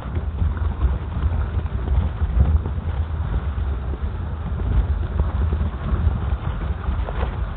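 Footsteps of someone walking on packed snow, with a heavy low rumble of wind and handling noise on the microphone throughout.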